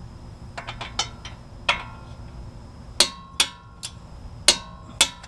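Metal tools clinking and tapping against steel hub and brake parts: about nine sharp, irregular metallic knocks, each ringing briefly.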